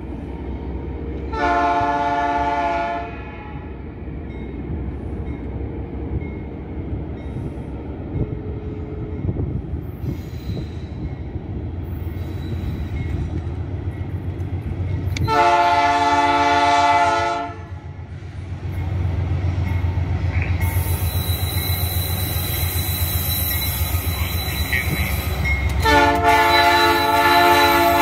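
Diesel freight locomotive, a GE AC44i, approaching at the head of a tank-car train: its engine rumbles steadily and grows louder as it nears. Its multi-chime horn sounds three times, a short blast about a second in, another about fifteen seconds in, and a third near the end.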